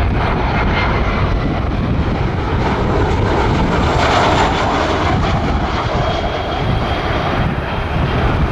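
Jet noise from a Southwest Boeing 737's CFM56 turbofans as the airliner passes low on final approach. It is a steady rushing noise that swells to its peak about four seconds in, and a faint high whine appears later as the plane moves off.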